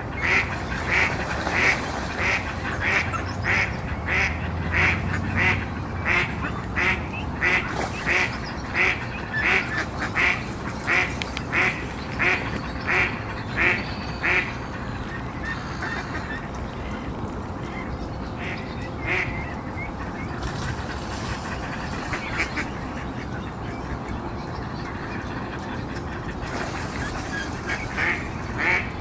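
Mallard duck quacking in a steady series of loud quacks, about two a second. The quacking stops about halfway through, leaving a softer steady background, and starts again near the end.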